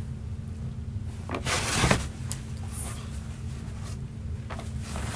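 Fabric rustling as a cloth drawstring dust bag is handled and its drawstring is pulled open. There are a few short rustles, the loudest about a second and a half in, over a steady low hum.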